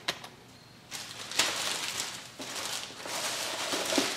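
Rustling and crinkling of handled packaging, starting about a second in and running on as an irregular crackle.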